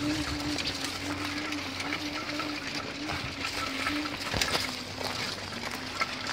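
Battery-electric drive motor of an Aggrozouk weeding tool carrier humming, its pitch wavering slightly, under a scratchy crackle with scattered light metal clicks and one sharp knock about four and a half seconds in.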